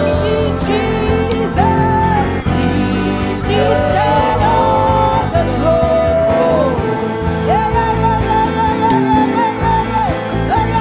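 Live gospel worship music: a sung melody with held, gliding notes over continuous instrumental backing.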